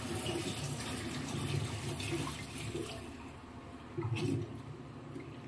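Hot water poured in a thin stream onto a kitchen sink's steel drain strainer, splashing and running down the drain to flush out loosened dirt. The pour stops about three seconds in, followed by a short louder burst of water sound about a second later.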